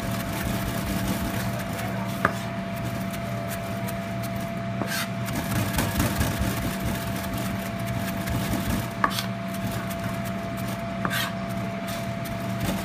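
Chef's knife rapidly fine-chopping fresh cilantro on a cutting board, a continuous patter of blade taps on the board, over a steady background hum.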